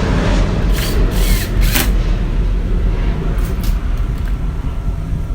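Deep, steady bass from a newly installed car audio system playing loudly, with a few sharp clicks about one to two seconds in.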